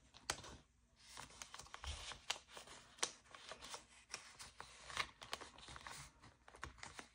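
Faint rustling of paper bills and cash envelopes being handled, with scattered light clicks and taps.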